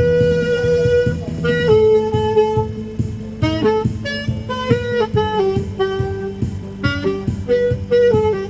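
Saxophone playing a slow melody of long held notes over a backing track with a steady drum beat.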